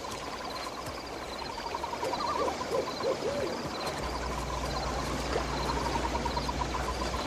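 Night-time sound effects: an owl hooting a few wavering calls over a fast, steady pulsing chirp. A low steady drone comes in about halfway.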